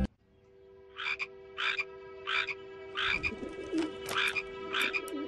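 Cartoon frog croaking: short croaks repeating at a slow, even pace, starting about a second in, over a steady low hum.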